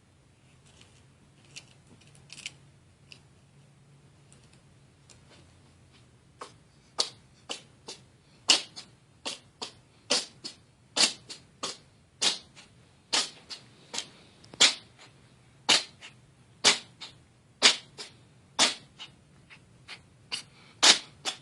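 A cat sneezing again and again: a few faint sneezes, then a long run of short, sharp sneezes about one a second, some coming in quick pairs.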